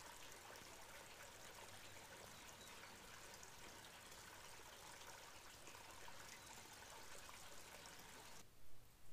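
Faint, steady rushing of a small creek flowing along a stone-walled channel; it cuts off shortly before the end.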